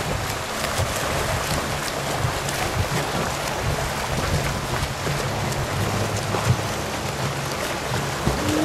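Many swimmers doing front crawl in open water, a steady rushing and splashing of churned water.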